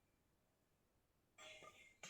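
Near silence: room tone, with a short faint sound carrying a few steady tones coming in near the end.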